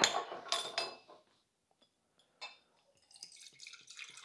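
Glass clinking and knocking in the first second. After a pause, kombucha starts pouring from a glass bottle into a glass measuring jug about three seconds in, a faint steady trickle.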